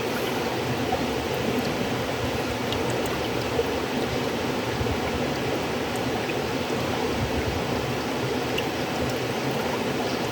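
River water flowing, a steady even rushing with a few faint small splashes.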